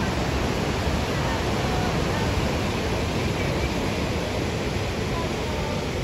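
Steady rushing of white water at a waterfall.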